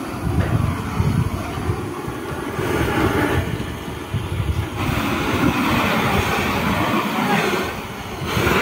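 Handheld butane torch on a gas canister burning steadily, its flame played over the inside of a wooden beehive box to kill the moth larvae and eggs in it. The rushing flame noise grows louder about two and a half seconds and again about five seconds in.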